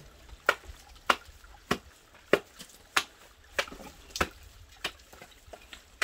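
A steady series of sharp strikes, about one every 0.6 seconds, from chipping at ice around a frozen spring-water intake pipe.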